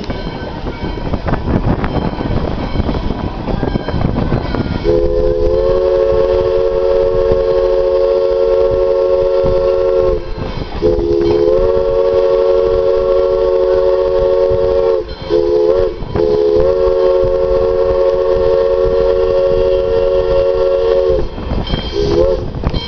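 Train rumbling along, then a locomotive's chime whistle blowing the grade-crossing signal: long, long, short, long. Each blast is a three-note chord that slides up slightly as it opens, and a brief toot follows near the end.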